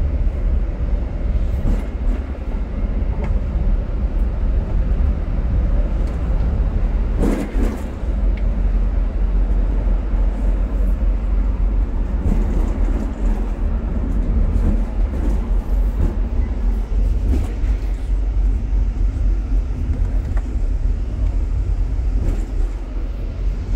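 Steady low rumble of a tour bus driving, engine and road noise heard from inside the cabin, with a few brief louder knocks, the clearest about seven seconds in.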